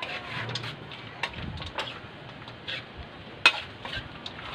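A cooking utensil stirring chicken in ketchup sauce in a metal wok, scraping and clicking against the pan over and over, with one sharp clack about three and a half seconds in.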